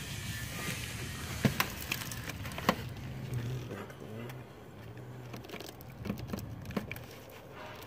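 Sharp plastic clicks and knocks from fingers working the camshaft position sensor's electrical connector: a pair about a second and a half in, a louder one near three seconds, and a few more near the end, over a low steady hum.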